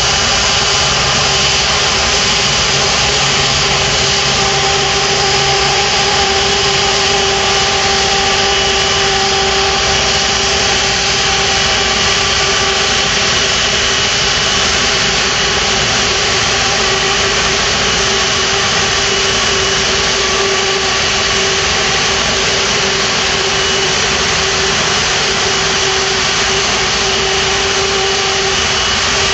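Airbus A330's twin turbofan jet engines running at idle as the airliner taxis slowly in to the gate: a loud, steady whine and rush with several held tones.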